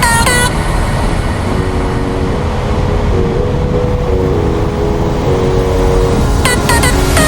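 Off-road vehicle driving, a loud steady low rumble of engine and terrain, with music playing a simple stepping melody over it.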